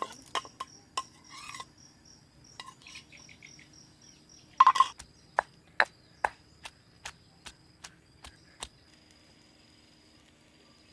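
A series of sharp knocks, a louder clatter a little before the middle, then single knocks about twice a second that die away, over an insect's steady high trill.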